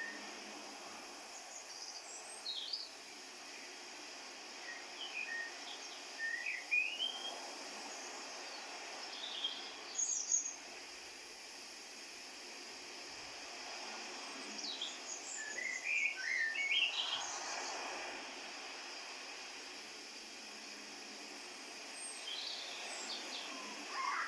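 Birds chirping and warbling in short scattered phrases over a steady background hiss.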